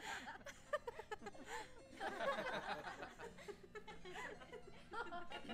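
Several audience members snickering and chuckling together, the laughter swelling about two seconds in.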